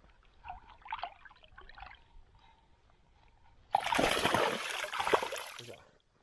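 Water splashing. A burst of splashing starts suddenly a little past the middle and lasts about two seconds, after faint trickling: a black bass being released at the water's surface and kicking away.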